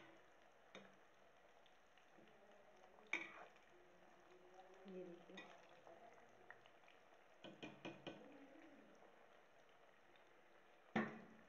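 Cauliflower pakoras deep-frying in hot oil in a kadhai, a faint steady sizzle, with a ladle knocking against the pan as they are turned: a sharp knock about three seconds in, a quick run of three or four clicks a little before the middle of the second half, and another sharp knock near the end.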